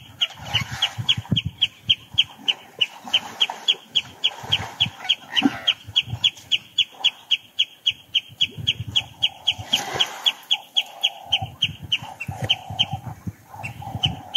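A bird calling a long, steady series of short, high, evenly spaced notes, about four a second, with intermittent low sounds underneath.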